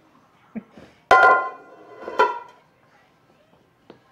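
A metal bowl or pan clanging twice, about a second apart, each sharp hit followed by a short ringing tone. A light tap follows near the end.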